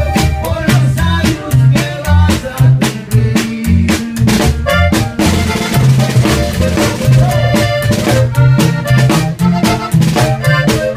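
Live band playing an instrumental passage: button accordion over walking upright bass notes and a steady drum beat.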